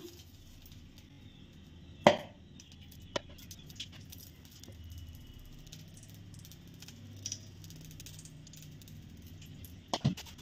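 A sharp metallic knock about two seconds in, then a few lighter clicks, as lumps of ghee are spooned into an aluminium kadai, over a faint steady hum.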